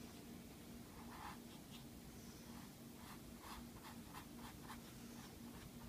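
Faint, short scratchy strokes of a small paintbrush dragged across a textured canvas with acrylic paint, a run of them from about a second in, over a faint steady hum.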